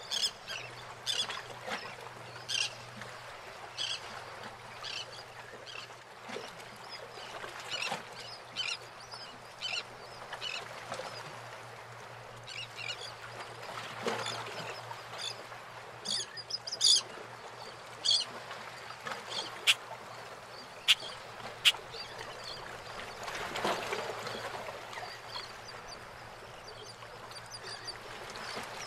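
Birds calling in short, repeated cries over the steady wash of harbour water, with a few sharp knocks about two-thirds of the way through.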